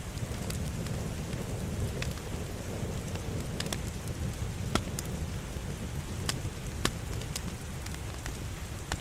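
Wood fire crackling in a fireplace: a steady low rumble of flame, with about ten sharp pops at irregular intervals.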